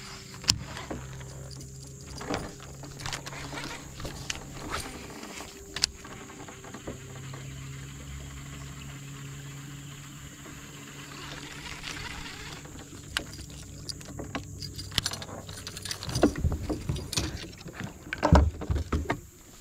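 Small fishing boat with rod and reel being worked: scattered clicks and knocks over a steady low hum that stops about 15 seconds in, with heavier bumps near the end.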